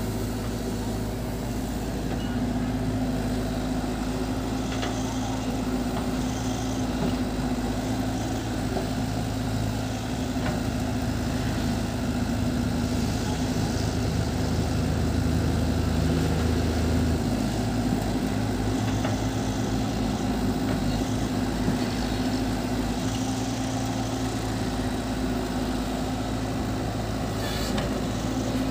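Cat 313 tracked excavator's diesel engine running steadily while it works its hydraulics through a dig, swing and dump cycle. A heavier low drone comes in for several seconds in the middle of the cycle and cuts off suddenly.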